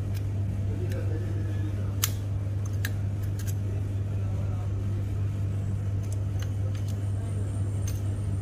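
Light clicks and taps of the fuser unit's plastic gear and metal bushing being handled at the end of the heat roller, about ten scattered through, the sharpest about two seconds in, over a steady low hum.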